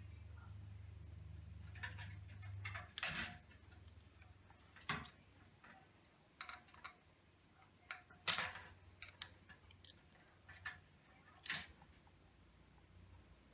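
Scattered sharp clicks and knocks of hand-worked plastic parts of a fluorescent light fixture being pried and handled, about a dozen irregular strikes. A low steady hum underneath stops about three seconds in.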